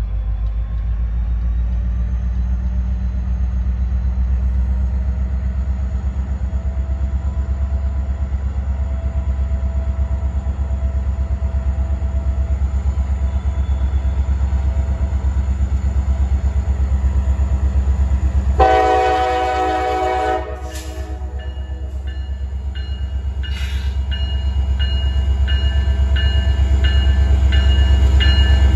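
Approaching freight train's diesel locomotive rumbling steadily, growing louder near the end as it comes close. About two-thirds of the way through, its horn sounds one blast of about two seconds, followed by a bell ringing about twice a second.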